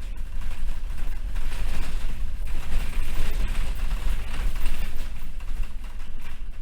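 Inside a 2014 Collins NexBus small bus: a steady low rumble of engine and road noise, with loose rattling over it.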